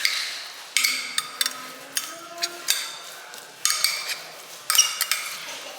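A kitchen knife cutting on a cutting board, giving about eight irregular sharp knocks, some with a short ringing tail.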